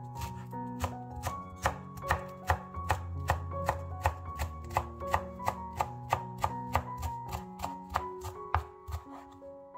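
Chef's knife chopping fresh parsley on a bamboo cutting board: a steady run of sharp knife strikes against the wood, about two to three a second, over soft background music.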